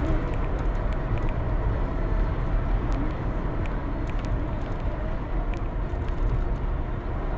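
Steady low rumble of engine and road noise heard from inside a moving road vehicle, with a few faint ticks.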